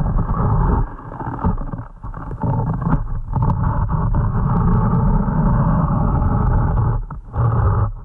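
Muffled rumbling and knocking from an underwater camera's waterproof housing as it is swung around under the ice, with water moving against it.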